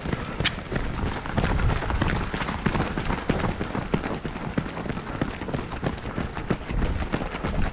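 Running footsteps of a pack of marathon runners on asphalt, a dense stream of quick footfalls, with wind buffeting the body-worn camera's microphone as a low rumble.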